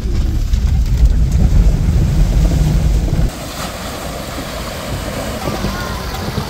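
Small car driving through shallow flood water on a dirt road, its tyres splashing and churning the water. Heavy wind rumble on the microphone covers the first three seconds and cuts off suddenly, leaving the wash of the splashing water.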